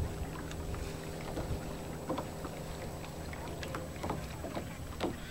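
Kayak paddle strokes in the water: scattered small splashes and drips, with water lapping at the hull, over a low steady rumble.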